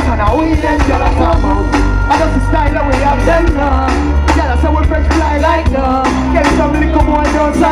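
Live dancehall music through a concert sound system: a vocalist on the microphone over a loud, heavy bass line.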